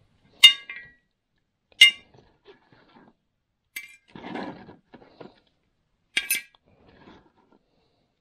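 Small metal parts clinking against each other and the metal holder as a gloved hand gropes for them in a tub of degreaser: four sharp clinks, the last one doubled, with a slosh of liquid about four seconds in.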